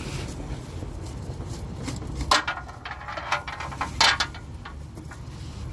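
A ratchet with socket and a Ford Ranger 2.2's oil filter housing cap being handled as the cap is worked loose and lifted off: a scatter of irregular sharp clicks and knocks, the loudest a little over two seconds in and about four seconds in, over a low steady rumble.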